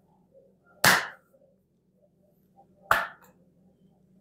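Two loud smacks of a cupped palm striking a man's bare back, about two seconds apart. They are the percussive shock-wave and vacuum strikes of a folk bone-setter's back treatment.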